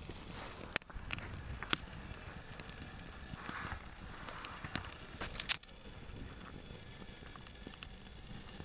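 Freshly lit kindling fire of thin split wooden sticks crackling, with sharp pops through the first five seconds or so, then quieter.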